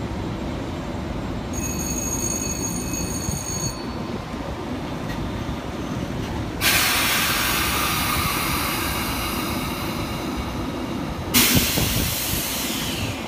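Metro-North M2-series electric commuter railcars standing at a platform. A steady high electronic tone sounds for about two seconds, the door-closing warning. A few seconds later there is a sudden loud hiss of air lasting about five seconds, then a second hiss bursts in and fades with a falling whine, over a low rumble throughout.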